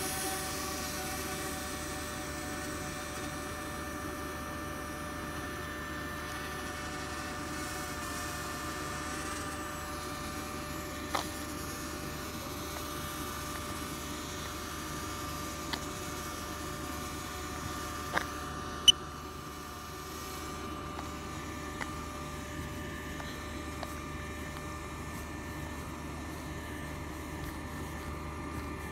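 DJI Spark quadcopter's propellers whining steadily, heard from a distance as several held tones over a low hum. A few sharp clicks break in, the loudest about two-thirds of the way through.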